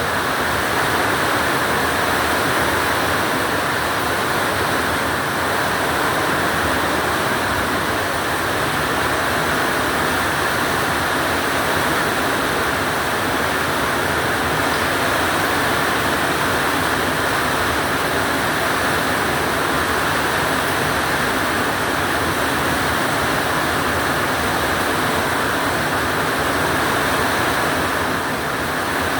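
Very heavy rain pouring down in a steady, unbroken rush.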